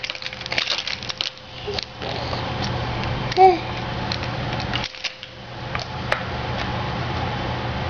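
Plastic toy telephone clicking and knocking as a baby grabs and pulls it about, the clicks thickest in the first two seconds and sparser after. About three and a half seconds in comes one short, loud baby squeal, all over a steady low hum.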